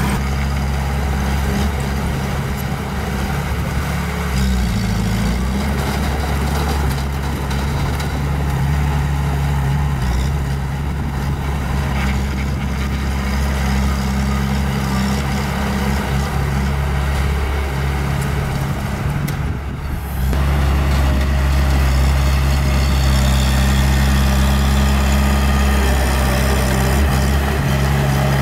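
Heavy diesel engine running steadily, its pitch dipping briefly about four seconds in. Shortly before the twentieth second the sound breaks off for a moment, then comes back a little louder.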